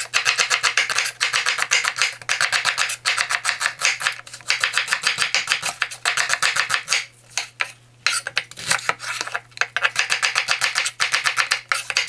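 Kitchen knife slicing onions on a bamboo cutting board: quick, even knocks of the blade on the wood, several a second, with short breaks about four and a half and seven seconds in.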